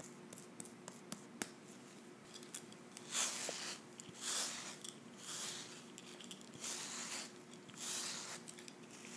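A wooden-handled hair brush drawn through thick, curly hair close to the microphone. It starts with light clicks and rustles, then from about three seconds in comes a row of swishing brush strokes, roughly one a second.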